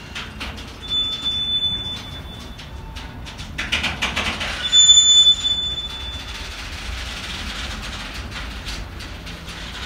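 Container freight train's wagons rolling past, with a steady rumble and repeated clicks of wheels over rail joints. Two brief high wheel squeals come through, one about a second in and a louder one about five seconds in.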